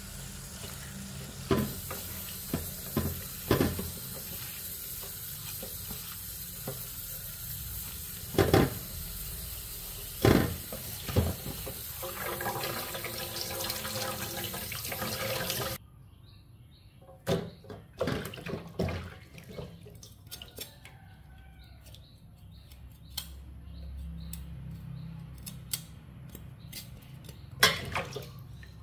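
Tap water running into a steel basin in a sink as petals in a wicker basket are rinsed, with several sharp knocks of the basket against the basin. About halfway through the tap shuts off suddenly, leaving quieter splashing and clatter of hands washing greens in the basin water.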